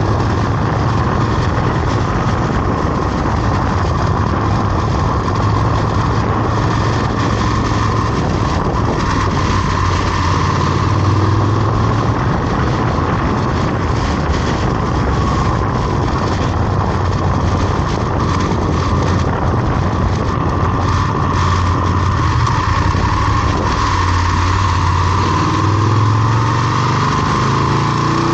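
A motor vehicle's engine running on the move, with steady road and wind noise; the engine hum rises a little about eleven seconds in and again near the end.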